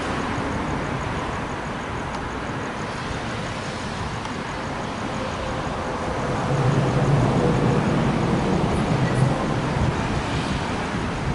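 Road traffic on a wet road: a steady hiss, swelling from about six to ten seconds in as a vehicle passes with a low rumble, then easing off.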